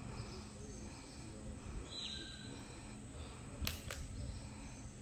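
Indoor arena ambience: a steady low hum under a faint background noise, with a brief high tone about two seconds in and two sharp knocks in quick succession past the middle.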